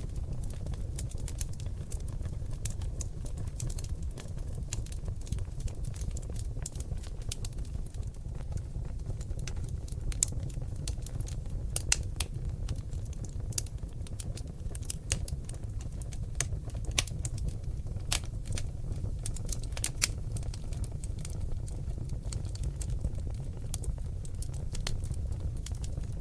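Oak log fire crackling: irregular sharp pops and snaps, many a second at times, over a steady low rumble of the flames.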